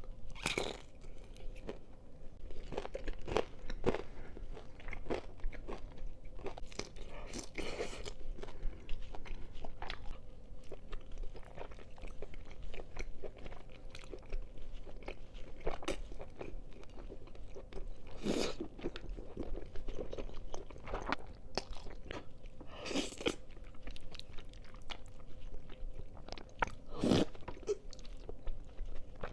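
A person eating close to the microphone: wet chewing mixed with crunchy bites, irregular, with a few louder bites every few seconds.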